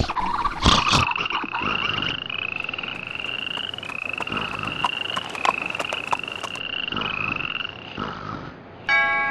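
Frogs trilling as night ambience: a steady run of short, rising trills, each under a second, with a few sharp clicks among them. A chiming bell-like tone comes in near the end.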